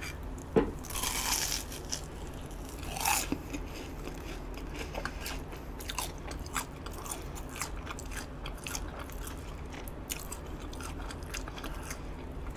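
A person biting into and chewing a Korean-style hotdog, a battered sausage on a stick dipped in ketchup. There are two loud bites in the first few seconds, about half a second and three seconds in, then steady chewing with many small wet mouth clicks.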